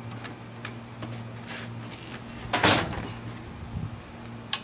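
Handling noise as the valve body's electrical plug and wiring harness are fed down into a ZF 5HP19 transmission case: light rustling and clicks, with one louder scrape about halfway through and a sharp click near the end.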